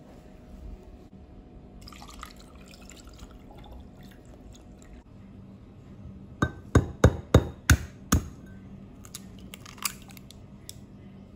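An egg knocked repeatedly against the rim of a small bowl: about seven sharp knocks in quick succession, then fainter ticks as the shell breaks open.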